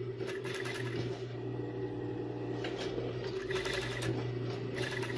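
Industrial cylinder-bed sewing machine with a tape binder, sewing binding tape onto swimsuit fabric in short runs. Its motor hums steadily throughout, and the stitching rattle comes and goes three times.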